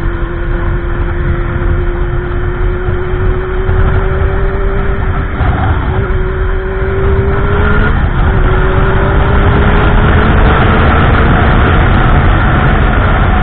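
Motorcycle engine pulling up through the gears. Its pitch climbs slowly and drops at an upshift about five seconds in and again about seven and a half seconds in, over a heavy rush of wind noise that grows louder in the second half.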